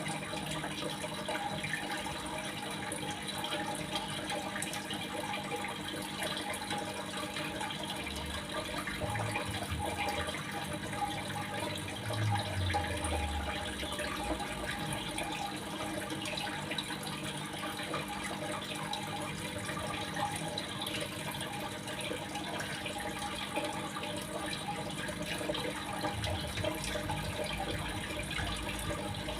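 Steady sound of running, splashing water.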